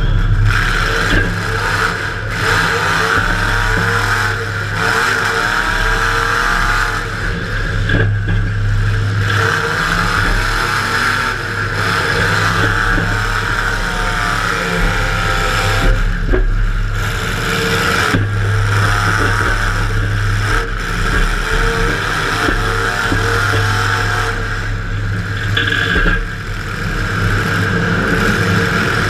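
Demolition derby car's engine running hard and revving up and down, heard from inside the car, with occasional sharp bangs.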